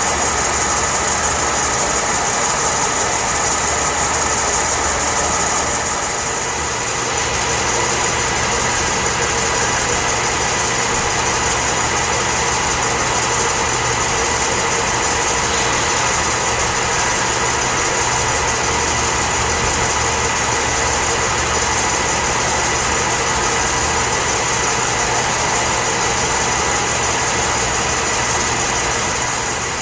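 Enco LG2080DS gap bed engine lathe running under power: a steady mechanical hum with several constant whining tones. The level dips briefly about six seconds in.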